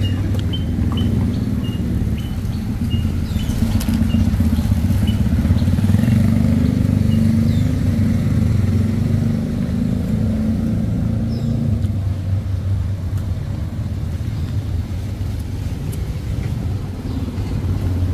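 Street traffic: motor vehicle engines running, a steady low rumble that swells in the middle, with a run of short high chirps over the first several seconds.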